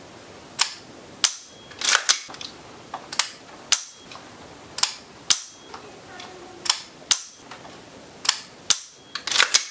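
Sharp metallic clicks of an AR-15 being dry-fired over and over: the safety selector snapping off and back on, the hammer dropping on the trigger pull, and the charging handle being racked to recock it. The clicks come one at a time or in quick pairs, well over a dozen in all.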